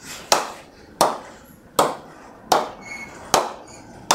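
A Dukes leather cricket ball bounced repeatedly on the face of a Ton Simo 54 willow cricket bat: about five sharp knocks, roughly one every three-quarters of a second, each dying away quickly.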